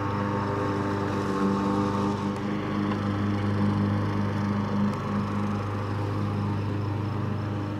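Steady engine drone with a strong low hum and a few steady higher tones, a machine running at an even idle.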